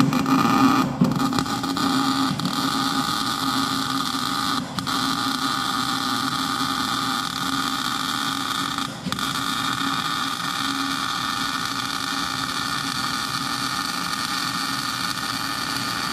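Steady crackling hiss of an electric welding arc laying weld inside a worn excavator boom pin bore, building it up undersize so it can be line-bored back round and true. The arc breaks off briefly twice, and the sound cuts off sharply at the end.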